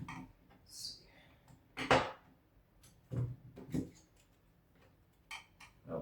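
Irregular clicks and knocks of a screwdriver working at the hard plastic of a Wheelock MT horn-strobe, prying stiff parts off it; the loudest is a sharp click about two seconds in.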